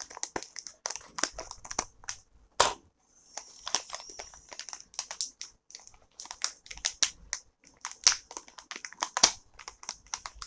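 Crinkling and crackling of a snack chip packet as it is cut and torn open, with irregular sharp crackles throughout.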